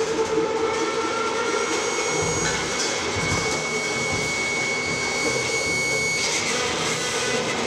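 Free-improvised noise music: a dense, steady droning texture of bowed double bass and effects-processed sound, with a high thin tone held for a few seconds in the middle.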